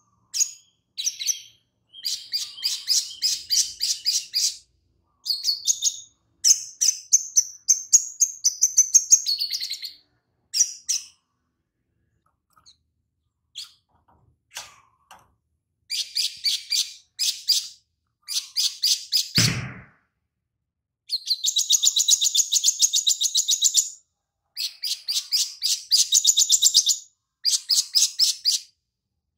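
Caged male sogon sunbird (olive-backed sunbird) singing: phrases of rapid, high-pitched twittering a few seconds long, in a song filled with mimicked lovebird calls. The song breaks off for a few seconds near the middle, and a single low thump sounds about two-thirds of the way through.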